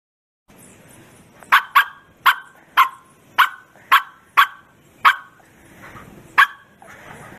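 Bearded collie barking: nine short, sharp barks about half a second apart, with a pause before the last one.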